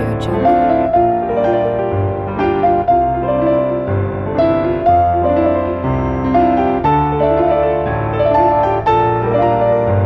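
Background piano music, with notes changing about every half second over a slower bass line.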